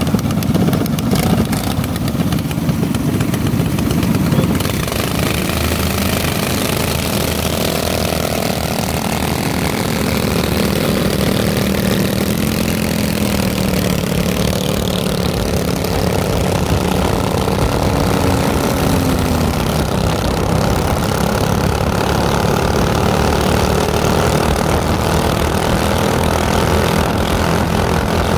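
Minibike's small engine running steadily. Its pitch rises and falls gently with the throttle.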